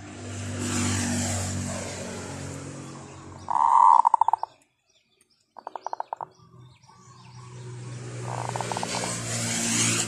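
Two motor vehicles pass by, each swelling up and fading away with a low engine hum and tyre hiss. Between them, about four seconds in, comes a loud, short, rattling chicken call, and near six seconds a shorter rattling bird call.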